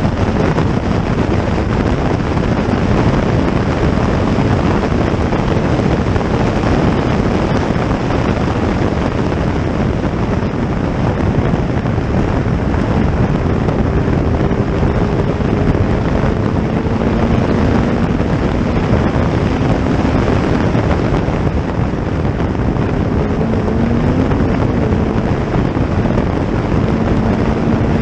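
Heavy wind rushing over the microphone, with a racing engine running underneath; its faint pitch glides up and down from about halfway in.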